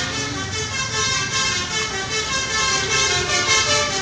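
Musical multi-tone vehicle horn of the telolet/basuri kind, playing a melody of held notes that step from one pitch to the next, over a low engine rumble.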